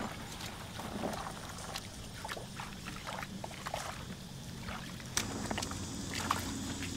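Faint splashes and sloshing of shallow muddy paddy water, as someone wades and handles fish, heard as scattered short splashes over a steady low hum.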